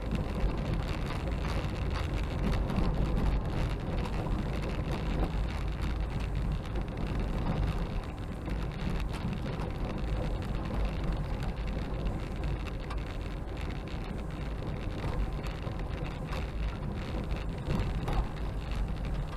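Car driving along a gravel road, heard from inside the cabin: a steady low rumble of tyres and engine with a light crackle of small clicks from the gravel under the tyres.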